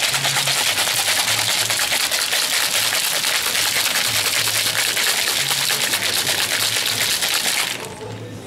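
Cocktail shaker full of ice being shaken hard: a loud, fast, continuous rattle of ice against the shaker that stops near the end.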